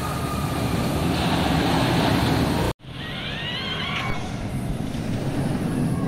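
Steel floorless roller coaster (B&M) train running along its track with a steady rumbling roar. The sound drops out for an instant near the middle, then the roar returns with riders' high, wavering screams for about a second.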